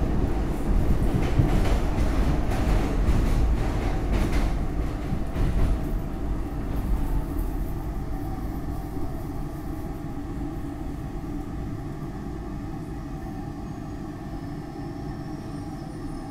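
SEPTA Market-Frankford Line subway car slowing into a station, heard from inside the car. For the first several seconds the wheels rumble and clatter over the rails. The noise then fades as the train slows to a stop, leaving a quieter rumble with a steady hum of tones.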